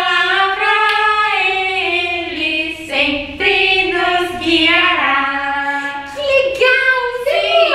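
Unaccompanied singing of a children's worship song in a high female voice, moving through long held notes.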